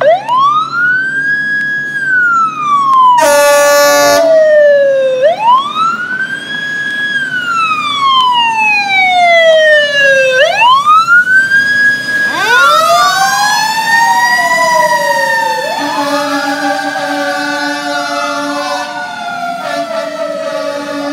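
Fire engine siren wailing, rising and falling about every five seconds as the engine runs with lights and siren, with a short air horn blast about three seconds in. About halfway through a second siren with a slower rise and fall joins, and the air horn sounds again, held through most of the last five seconds.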